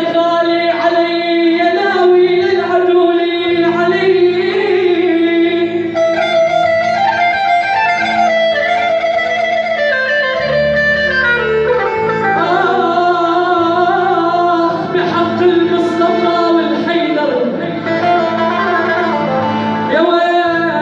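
Live Arabic song: an electronic arranger keyboard (the "organ") playing the backing and melody, amplified through a PA speaker, with a man singing into a microphone.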